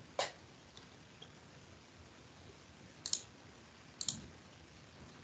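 Two short, sharp clicks about a second apart over quiet room tone, with a fainter click just after the start.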